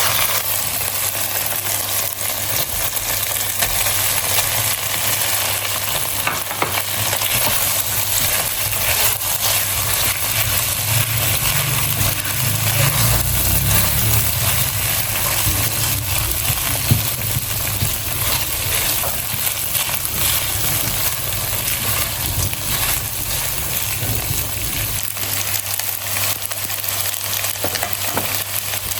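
Chicken fried rice frying in a pan: a steady sizzle with scattered clicks from stirring, over a steady low hum.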